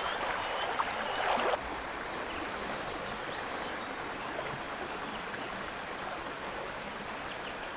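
Stream water running steadily. It is a little louder, with a few faint ticks, for the first second and a half, then settles to an even rush.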